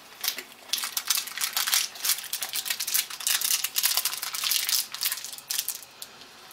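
Dense, irregular crackling and rustling of gloved hands handling a small, greasy alternator ball bearing.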